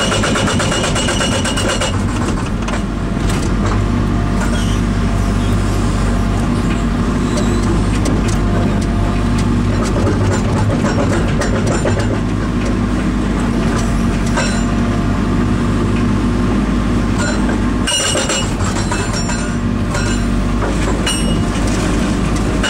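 Diesel engine of the carrier machine running steadily at about half throttle, which keeps the hydraulic oil flow low enough not to damage the hammer. It drives an INDECO hydraulic breaker that hammers in rapid blows in the first two seconds and again near the end.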